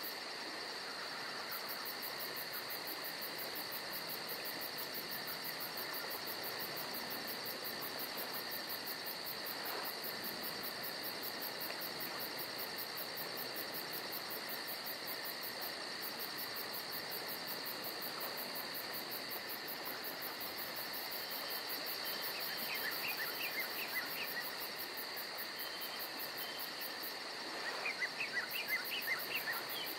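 Steady chorus of insects, crickets among them, with a very fast high pulsing trill over a constant buzz. Two short runs of quick chirps break in, about two-thirds of the way through and again near the end.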